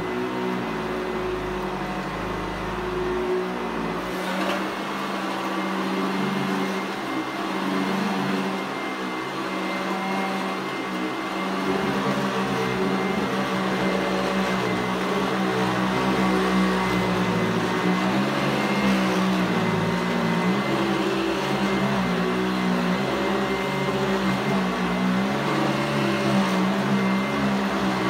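Eureka ESP upright vacuum cleaner running steadily while being pushed back and forth over a rug, its motor hum wavering slightly in pitch as it moves.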